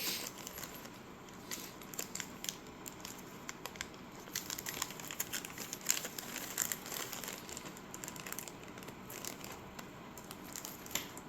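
Small packaging and parts being handled, crinkling, with many small scattered clicks and crackles throughout.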